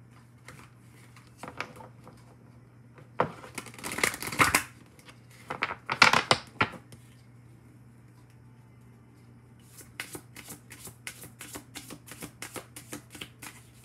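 A Major Arcana tarot deck being shuffled by hand: two loud rustling shuffles a few seconds in, then a quick run of clicking card flicks near the end.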